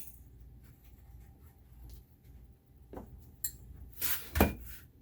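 Objects being handled: a few light clicks and a sharper knock about four seconds in, the loudest sound, over a low room hum.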